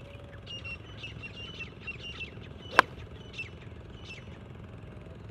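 One sharp click of a 7-iron striking a golf ball off the tee, a little past halfway through. Small birds chirp repeatedly in the background.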